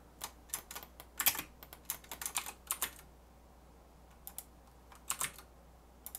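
Computer keyboard keys clicking in quick, irregular bursts for about three seconds. After a short pause, a few more clicks follow.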